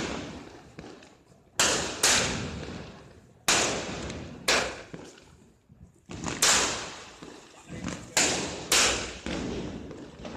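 Diwali fireworks going off: a series of about eight loud bangs, roughly a second apart, each echoing and fading away, like the shots of a multi-shot firework.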